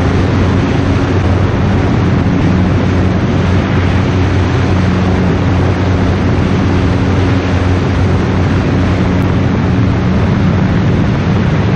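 Single-engine propeller light aircraft in flight, heard from a camera on the wing: a steady engine and propeller drone under heavy wind rush from the airflow.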